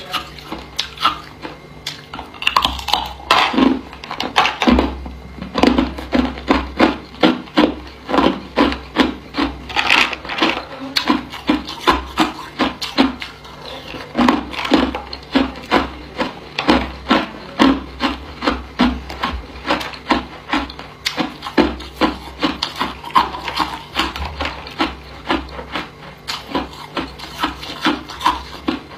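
Hard ice cubes being bitten and chewed close to the microphone: a steady run of sharp, brittle crunches, two or three a second.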